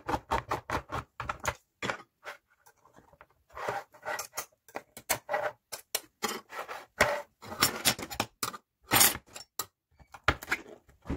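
Hand-held can opener cranked around the lids of metal tins, a run of sharp metallic clicks and crunches coming in several bursts with short pauses between.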